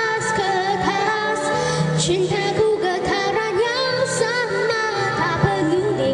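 A ten-year-old girl singing a Malay song into a microphone over musical accompaniment, her held notes wavering with vibrato.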